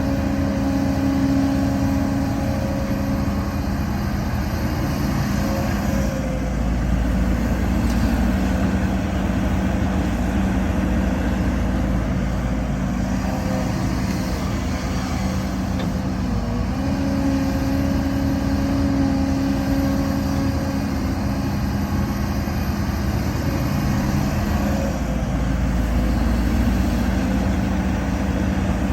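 Diesel engines of an excavator and dump trucks running under load, a deep rumble under a steady engine hum. About halfway through, the pitch dips briefly and then comes back a little higher.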